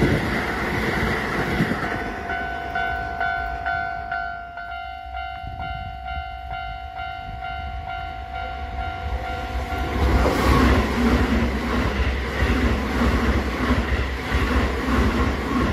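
The tail of a passing train rumbles past; then a level-crossing warning bell rings in a steady, repeating ding about twice a second. About ten seconds in, a Keisei electric commuter train rushes past close by, its wheels clattering over the rail joints with a loud rumble that drowns out the bell.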